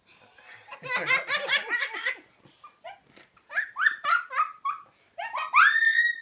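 A woman and a young girl laughing, a quick run of giggles about a second in, then scattered laughs and a high, rising squeal of laughter near the end.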